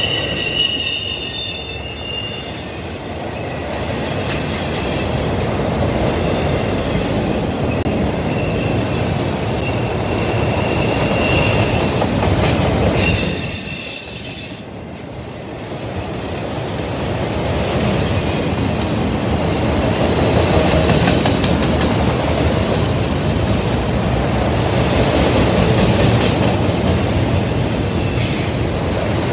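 Freight train rolling past with a steady rumble of wheels on rail and clickety-clack. High-pitched wheel squeal sounds in the first couple of seconds and again louder around the middle.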